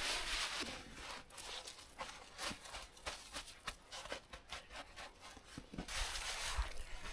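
Faint handling noise: scattered light clicks and rustles, with a short hiss about six seconds in.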